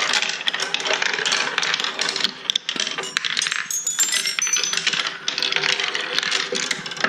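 Marbles rolling and clattering along the wooden tracks of a handmade marble run, a dense, continuous stream of clicks and knocks.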